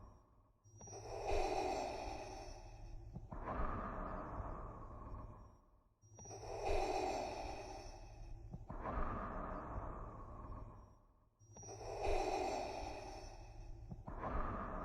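Darth Vader's mechanical respirator breathing, the sound effect made by breathing through a scuba regulator: a hissing in-breath and a lower out-breath, repeating evenly about every five seconds, about three full breaths.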